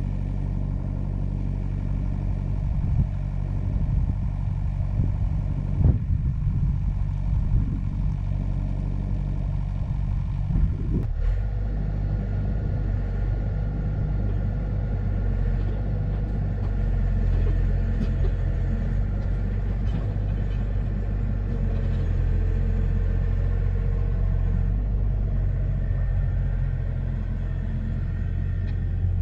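An engine running steadily at an even speed, with a few knocks in the first ten seconds.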